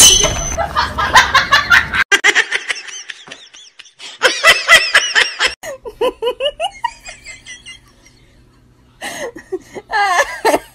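A person laughing hard in repeated bursts of giggles and snickers, with a short lull before a fresh run of laughter near the end.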